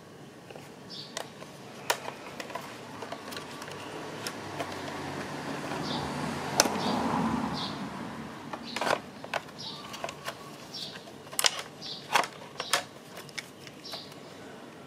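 Scattered plastic clicks and knocks from a Hyundai Veloster folding side-mirror housing and its wiring connector being handled and pulled apart. Over the middle few seconds a rush of noise rises and falls, and short high chirps sound now and then in the background.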